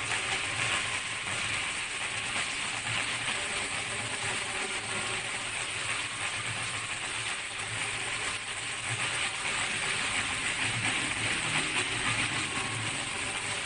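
Vertical high-speed film slitting-rewinding machine running at a steady speed: an even, continuous mechanical whir.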